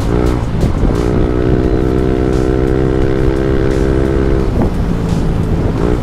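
Yamaha NMAX 155 scooter's single-cylinder four-stroke engine running through a JVT V3 aftermarket exhaust while riding, with a low rumble of wind on the microphone. The engine note holds steady through the middle and shifts in pitch near the start and again toward the end.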